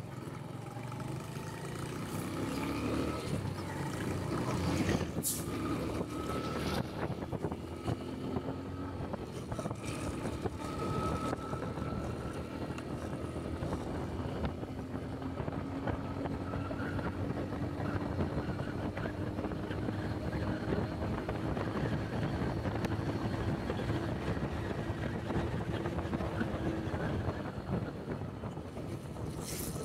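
Honda Pop 100 motorcycle's small single-cylinder engine running at road speed, with wind and road noise. Its note climbs slowly over a long stretch, and there is a sharp click about five seconds in and another near the end.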